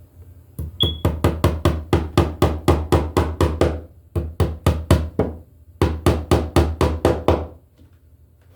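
Hammer driving a nail into a wooden stud with quick, light blows, about four to five a second, in three runs separated by short pauses.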